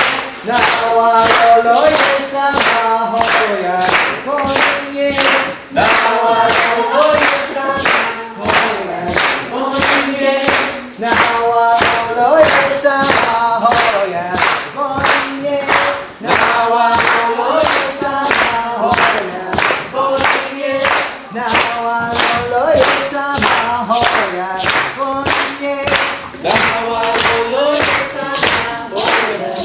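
A group singing a chant song together, clapping on a steady beat about twice a second.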